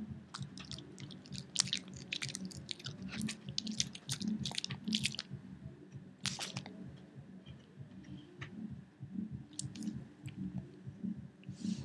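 Pekingese dog chewing a rawhide treat: steady chomping about twice a second, with crisp crackles of the rawhide that come thickest in the first half.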